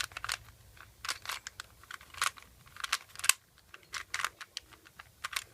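Rubik's cube being scrambled by hand: irregular plastic clicks and scrapes of its layers turning, several a second.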